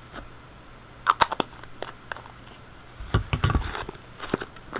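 Handling sounds of paint being added to slime: a few sharp clicks about a second in, then low thumps and rustling around three seconds in.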